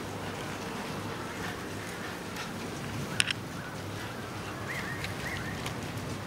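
Steady outdoor background noise, with one sharp click about three seconds in and two short high chirps near the end.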